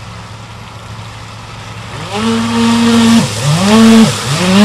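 Electric RC speed boat's motor running hard as it passes close, its pitch holding and then rising and falling several times with the throttle, over the hiss of the spray from the hull.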